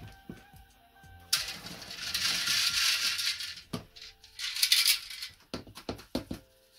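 Worm castings with small stones and clay pebbles being shaken through a coarse wire-mesh garden sieve onto a plastic tray: a gritty rattling hiss in two spells, the first about two seconds long, with a few sharp knocks of the sieve's rim.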